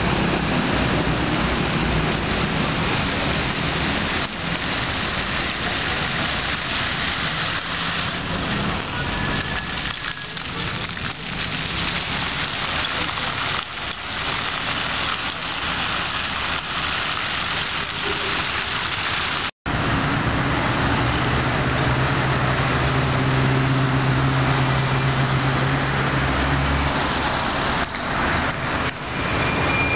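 Outdoor city ambience: a steady wash of splashing water from a fountain's jets, with traffic underneath. After a brief dropout about two-thirds of the way in, street traffic takes over, with a car engine humming steadily for several seconds.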